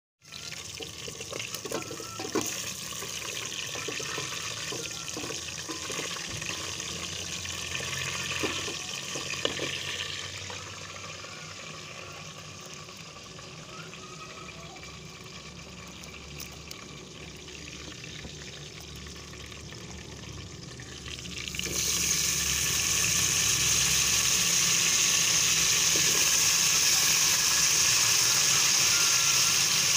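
Chicken pieces sizzling in hot oil in an aluminium pot, with the clicks and scrapes of a wooden spatula stirring. The sound drops to a quieter stretch partway through, then about 22 seconds in a much louder, steady sizzle starts as the cauliflower and onions fry in the pot.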